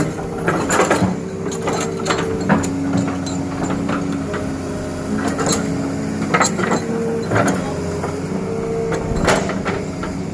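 Hitachi Zaxis 200 excavator's diesel engine running, its tones stepping up and down in pitch, with frequent sharp clicks and knocks throughout.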